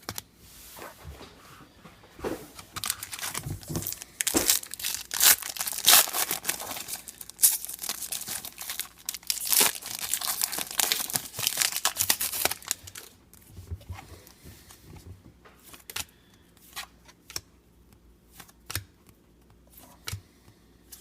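A foil trading-card pack wrapper being torn open and crinkled for about ten seconds, followed by softer scattered taps and slides of the cards being handled.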